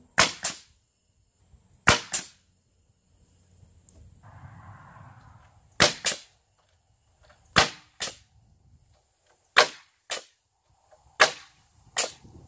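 Pneumatic framing nailer firing nails into wooden wall girts, the shots coming in pairs about every two seconds, a dozen in all.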